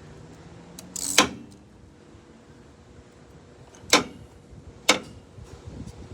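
Three sharp knocks, the first about a second in and the other two near four and five seconds, over a faint low hum.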